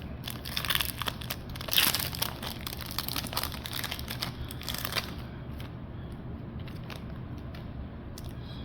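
Foil booster-pack wrapper crinkling and being torn open, busy and crackly for about five seconds, then dropping to a few faint taps and rustles of cards being handled.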